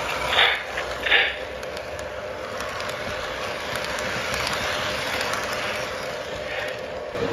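Lionel O-gauge model train cars rolling past on three-rail track, a steady rolling rumble and clatter of wheels. In the first second and a half come two short hissing chuffs, evenly spaced, from the passing steam locomotive's sound effects.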